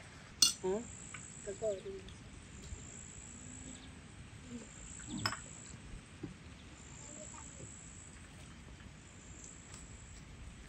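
Insects trilling: high, steady trills about a second or so long, repeating with short gaps. A couple of sharp clinks of cutlery on plates, about half a second in and about five seconds in.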